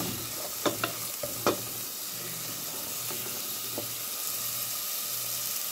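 Diced onion sizzling steadily in hot oil in a metal pot while a wooden spoon stirs and scrapes it, with a few sharp knocks of the spoon on the pot in the first second and a half.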